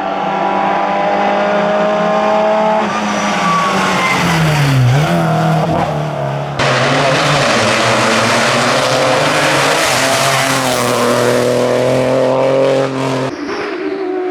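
Hillclimb race car engine at high revs, holding a steady note, dipping in pitch about four seconds in and climbing again. About six and a half seconds in, a loud rush of noise comes in over the engine, with tyre noise, before the note drops away near the end.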